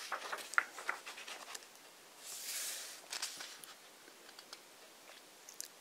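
Pages of a large hardcover book being leafed through: soft paper rustles and small flicks, with one page swishing over about two and a half seconds in.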